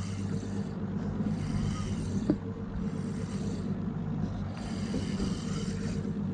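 Boat engine idling with a steady low hum, and one short sharp click a little past two seconds in.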